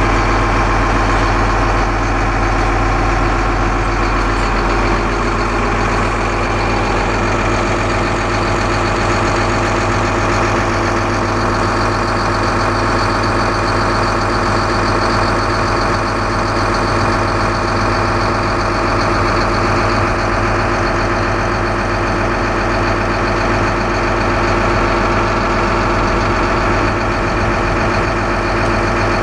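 Case CX330 excavator's Isuzu six-cylinder turbo diesel idling steadily.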